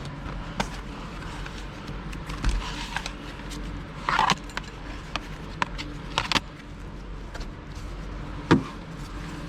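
Hands working plastic car interior trim loose: scattered clicks and short scrapes, with one sharp knock about 8.5 seconds in.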